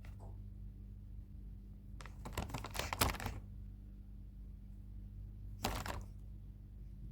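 A cockatiel scratching and pecking: two short bursts of rapid light clicking and rustling, the first about two seconds in and the second shorter one near the end, over a low steady hum.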